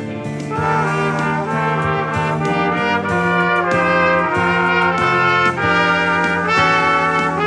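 Three trumpets playing a melody in harmony over a backing track with a bass line.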